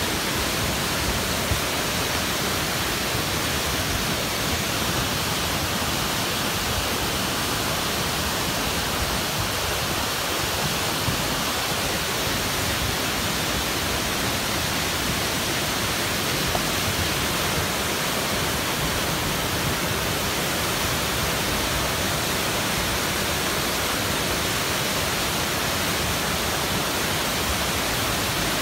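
Muddy flash flood carrying branches and brush pouring over a rock ledge: a steady, unbroken rush of water.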